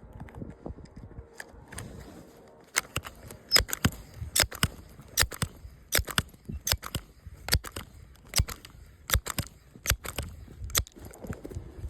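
Footsteps with a sharp click or crunch at each step, often in quick pairs, starting about three seconds in and stopping near the end.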